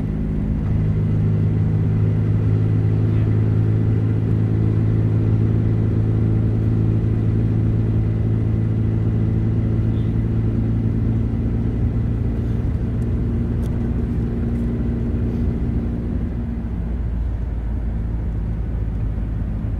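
Steady drone of a car's engine and road noise heard inside the cabin while driving at an even speed. It eases off a little near the end.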